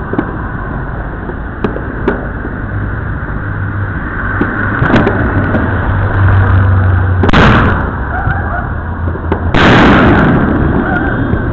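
Fireworks going off, a steady background of crackling with scattered sharp pops, and two much louder explosions about seven and a half and ten seconds in, the second ringing out for nearly a second.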